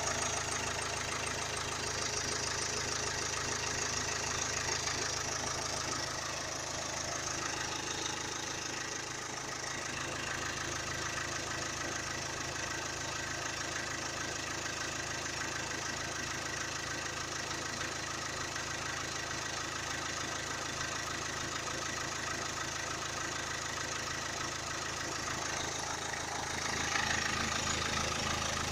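Renault K9K 1.5 dCi four-cylinder diesel engine idling steadily, getting a little louder near the end.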